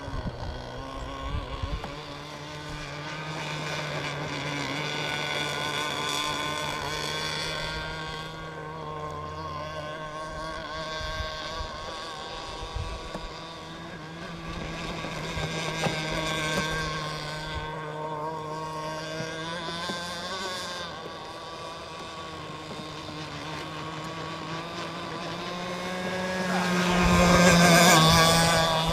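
Two-stroke gas engine of a 1/5 scale RC racing boat running at speed, its steady buzzing note wavering and swelling as the boat laps the water, loudest as it passes close near the end.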